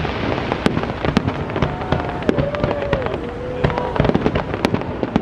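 Aerial fireworks bursting: a quick, irregular run of bangs and crackles over a steady rushing noise, with a wavering held tone through the middle.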